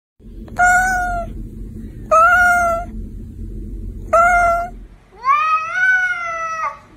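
Domestic cats meowing: three short, evenly spaced meows over a low rumble, then a longer meow that rises and then falls in pitch.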